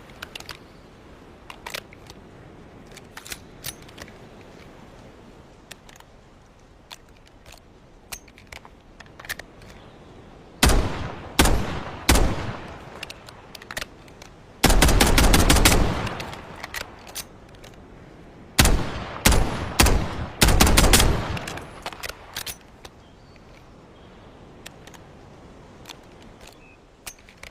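Colt 1911 semi-automatic pistol gunshots: three single shots, then a fast string of rapid fire, then several more shots in quick succession, with faint light clicks before and after.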